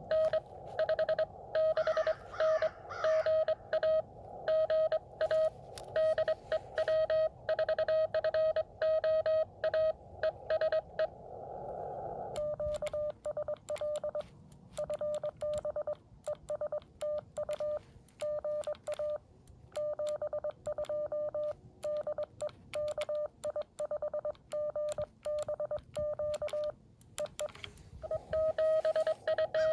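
Morse code (CW) tones at about 600 Hz from a Xiegu X6100 transceiver, keyed in quick dots and dashes. For the first twelve seconds or so a station is heard through the receiver's narrow CW filter with band hiss around it; then the operator's own clean keyed sidetone follows with the hiss gone, and received signals with hiss return near the end.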